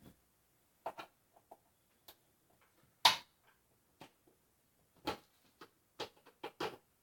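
Scattered light clicks and taps from the old ceiling light fixture being handled as it is taken down, with one sharper knock about three seconds in.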